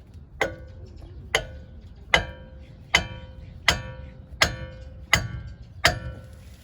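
A sledgehammer striking a ball-joint fork tool (pickle fork) wedged under the lower ball joint of a 2001–2005 Honda Civic's front knuckle: eight ringing metal-on-metal blows at a steady pace, about one every three-quarters of a second. The blows do not pop the ball joint loose.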